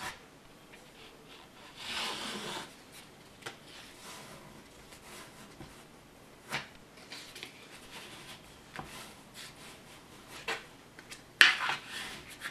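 Thin card being rubbed and pressed by hand against a wooden tabletop to curve it. A papery scrape comes about two seconds in, with scattered light taps, and a sharp knock followed by rustling near the end.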